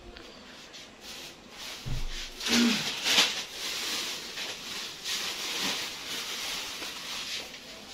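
Thin plastic grocery bags rustling and crinkling as they are picked up and handled, loudest about three seconds in. A dull knock comes just before.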